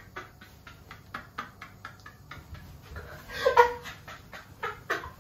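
A man laughing in a breathy, wheezing way, in rapid short gasps, with a louder high-pitched squeal about three and a half seconds in.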